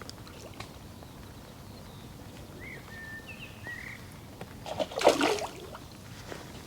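Quiet outdoor background with a few faint short bird chirps, then a brief loud noisy burst about five seconds in.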